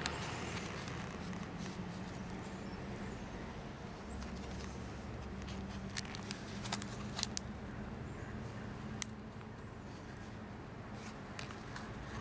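Pages of a thick collaged art journal being handled and turned: paper rustling, with a few short sharp clicks from the stiff pasted-on paper about halfway through and once more a little later. A steady low background rumble runs underneath.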